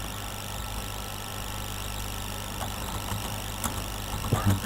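Steady low hum and hiss from the recording setup, with two faint keyboard key clicks about two and a half and three and a half seconds in as a search term is typed.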